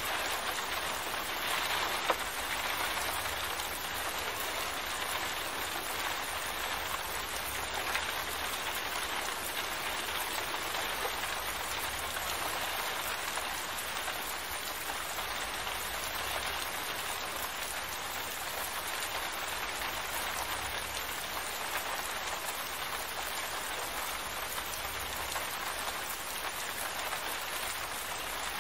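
Steady rain falling, an even hiss of many drops, with a single sharp tick about two seconds in.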